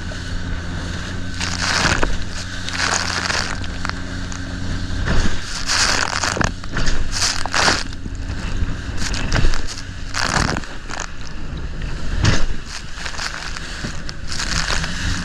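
A motorboat's engine running steadily under way, a low hum, with irregular rushes of water and wind noise every second or two.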